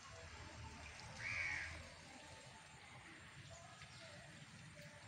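A crow caws once loudly, a single harsh call about a second and a half in, over a faint steady background hiss.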